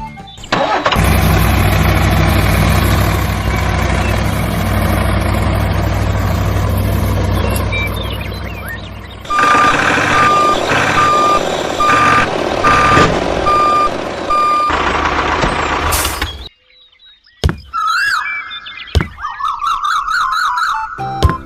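A heavy vehicle engine running steadily. Midway it is joined by a truck's reversing alarm, a steady beep repeating several times over about five seconds. After a brief cut, short whistling glides follow.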